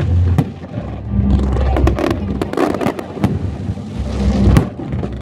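Aerial fireworks bursting: deep rolling booms, swelling about a second in and again around four seconds in, with sharp cracks between them.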